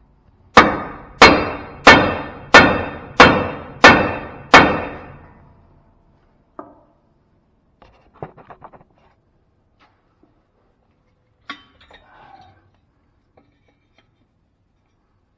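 Hammer blows on the steel front steering linkage of a Ford L8000 truck, driving out a tie rod end: seven hard, ringing strikes in a steady rhythm, about three every two seconds. A few lighter metal clinks follow.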